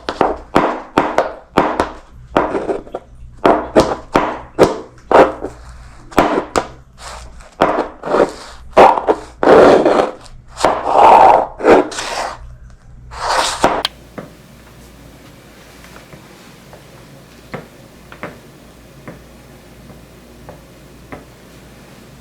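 Shoes walking on a hardwood floor: footsteps at about two a second, some of them drawn-out scuffs. The steps stop abruptly about fourteen seconds in, leaving a faint hiss with a few light taps.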